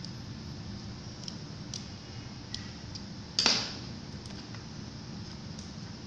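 Small screwdriver working the screw terminal of an L298N motor driver board: a few faint clicks and scrapes and one sharper metallic click about three and a half seconds in, over a steady hum.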